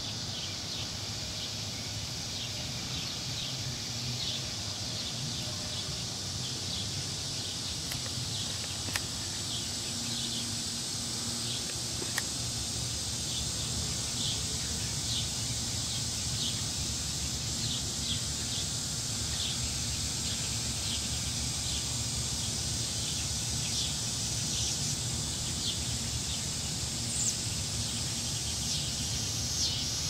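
Steady high-pitched insect chorus with short bird chirps repeating about once a second, over a low rumble of wind moving the treetops. The chirps get louder near the end.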